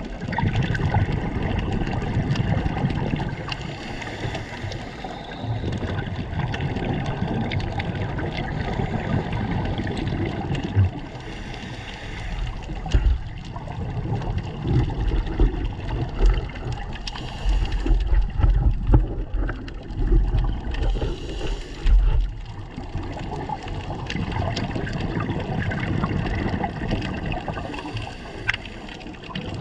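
Muffled underwater water noise heard through an underwater camera housing: a steady rushing with gurgling, and louder low bursts around the middle.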